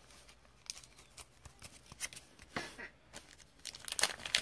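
Hard plastic trading card holders being handled and set down on a stack: scattered light clicks and taps of plastic, with a quick run of louder clicks about four seconds in.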